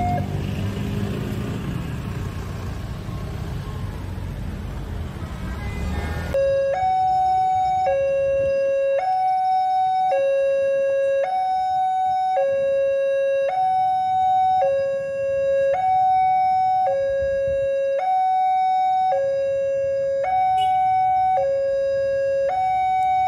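Road traffic noise with motorcycles at a level crossing as the barrier lifts. About six seconds in, a railway level-crossing warning alarm starts: an electronic two-tone signal alternating high and low, about a second per tone, repeating steadily. It sounds while the barriers are down, warning of an approaching train.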